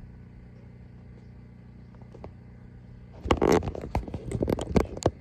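A hand handling the recording phone: after a stretch of quiet steady background, a jumble of loud thumps, rubs and scrapes on the microphone starts about three seconds in.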